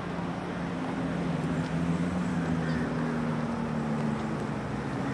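Outdoor background noise with a steady low droning hum and no distinct single event.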